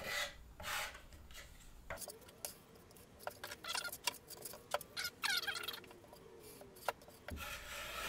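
Square-notch trowel scraping and spreading carpet adhesive across a drywall panel in repeated uneven strokes. A short squeak that falls in pitch comes about five seconds in.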